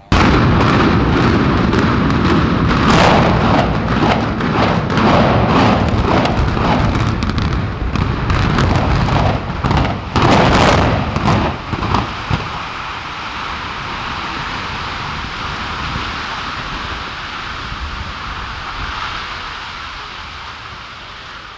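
Explosive demolition charges going off in rapid succession for about twelve seconds as a reinforced-concrete high-rise is imploded, a dense string of sharp bangs. The collapse follows as a steady rushing rumble that slowly fades.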